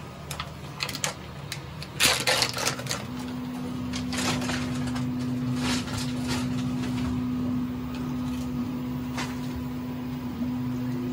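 Steady hum of the Prusa i3 MK3S+ extruder's cooling fan, running while the hotend preheats to unload filament. A short burst of clicks and rustles about two seconds in is the loudest part, and the hum sets in just after.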